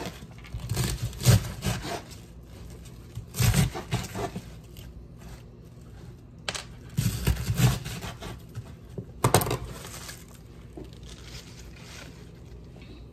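Knife cutting up a head of raw cabbage on a cutting board: crisp crunching cuts and leaves being pulled apart, in four short bursts during the first ten seconds.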